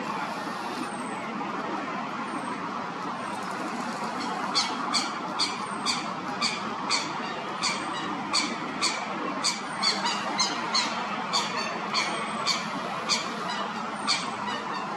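Coot chick giving short, sharp peeping calls, repeated about twice a second from about four and a half seconds in, over a steady background noise. A few faint, high, falling whistles come in the first seconds.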